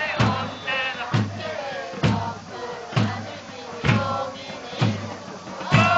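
Football supporters chanting in unison to a big bass drum struck about once a second.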